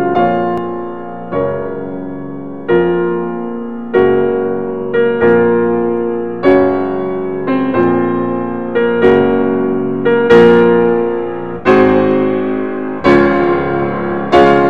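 Background piano music: slow chords struck about once every second and a bit, each ringing and fading before the next.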